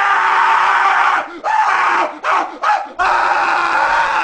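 Loud, drawn-out roaring yell in a cartoon fawn's voice, broken by three short gaps in the middle before carrying on.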